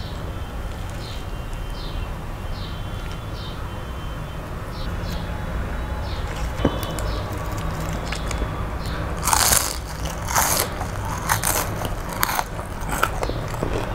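Close-miked biting and chewing of crisp fried pumpkin leaves (kumro pata bhaja). From about nine seconds in there is a run of loud crackling crunches, over a steady low hum.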